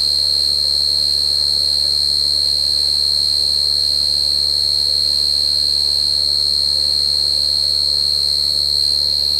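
Cricket singing one continuous, steady, high-pitched trill without a break.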